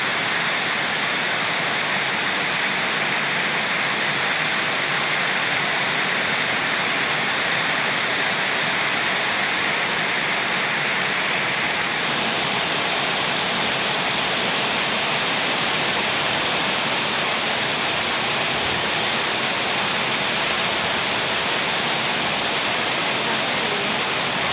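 Heavy rain pouring down steadily in a storm, an even rushing hiss.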